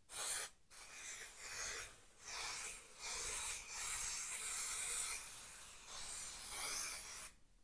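Aerosol can of spray contact adhesive hissing in a series of spray bursts of a second or several seconds, with short breaks between them. The can is nearly empty.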